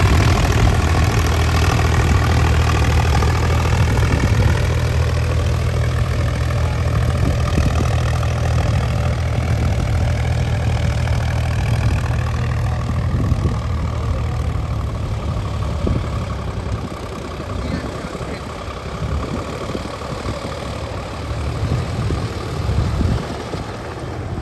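Tractor diesel engine running steadily, its note creeping slowly upward. The deep engine hum weakens and turns uneven over the last several seconds.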